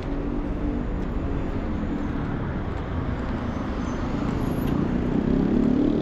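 Motor traffic: a steady rumble with the hum of a vehicle engine, which grows louder near the end.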